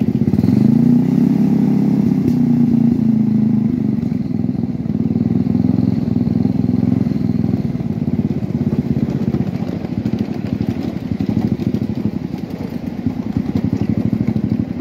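Small engine of a ride-on miniature train's locomotive revving up about a second in, then running steadily as the train rolls along the track.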